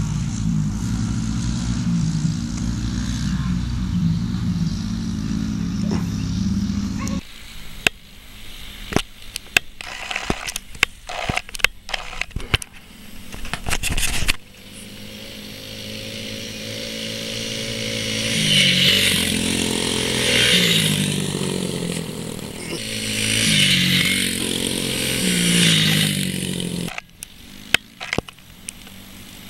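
Yamaha TT-R90 dirt bikes' small four-stroke single-cylinder engines running on a dirt track: a steady engine drone for the first several seconds, then a stretch of scattered clicks and knocks. From about halfway the engine note rises and falls in pitch over and over as the bikes accelerate and ease off, before fading out near the end.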